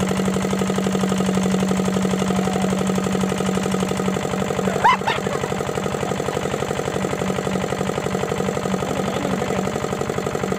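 Single-cylinder Kirloskar diesel engine driving a water pump, running steadily with an even rapid beat. A brief sharp sound cuts in about five seconds in.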